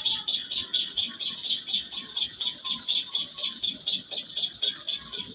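GTS hair clipper blade being rubbed back and forth on a kerosene-wetted sharpening stone, a steady rasping scrape at about four strokes a second. It is a set of 20 sharpening strokes on one side of the blade.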